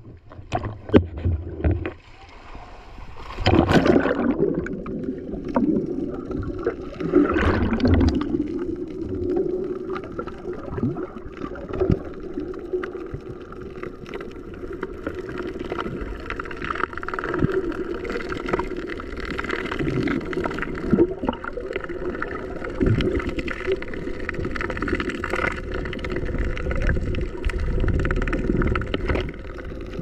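Small boat's motor running with a steady hum, getting louder about three and a half seconds in with some rises and falls in pitch, over water splashing and occasional knocks.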